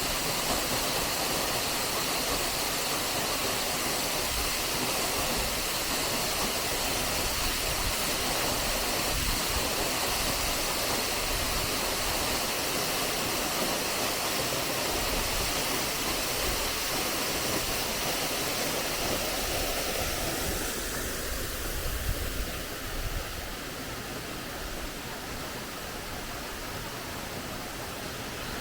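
Steady rushing of a waterfall, a full hiss of falling water. About 21 to 23 s in there are a few faint bumps, and the sound drops a little and loses some of its higher hiss.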